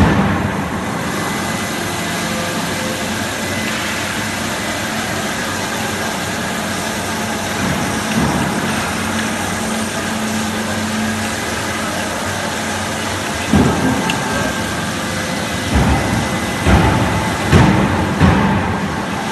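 Horizontal metal band saw running, its blade cutting through a round steel bar with a steady mechanical noise. Several short, louder knocks come in the last third.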